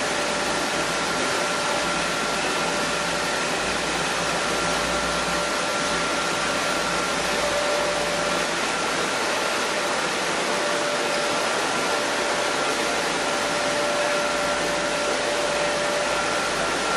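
Machinery of a chili powder milling line running steadily: an even rushing noise with two steady whining tones, typical of a grinder and its air blower.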